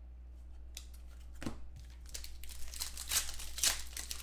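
Plastic wrapper of a football trading card pack being torn open and crinkled by hand, starting about a second and a half in and growing busier toward the end.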